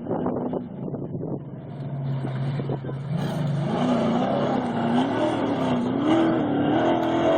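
Off-road race vehicle's engine approaching, a few knocks early on giving way to a rising engine note about three seconds in that grows louder, its revs swinging up and down.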